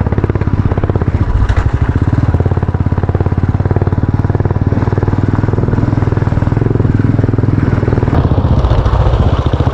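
Motorcycle engine running steadily under way, heard close up from the bike, its rapid firing pulses strong and even, with a rushing noise over it.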